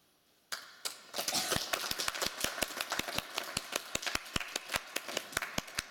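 Audience applause starting about half a second in, with one person's clapping close to the microphone standing out as a steady beat of sharp claps over the denser clapping of the hall.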